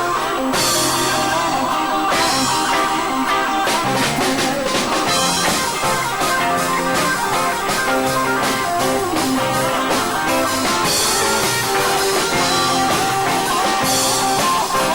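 Live rock-and-roll band playing an instrumental stretch between songs, guitar over bass and drum kit with cymbal crashes, no singing; the recording is poor.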